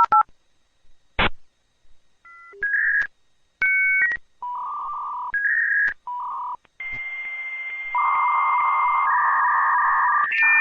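A sequence of electronic telephone-line tones. A click comes about a second in, then short two-note beeps and hissing tone bands. From about seven seconds a steady high tone holds with a louder hiss band beneath it, like a dial-up modem handshake.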